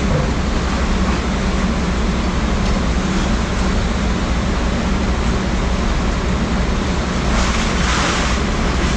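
Peterbilt semi truck's diesel engine running steadily with a low rumble, while the truck works at the unloading site. About seven seconds in comes a burst of hiss lasting about a second.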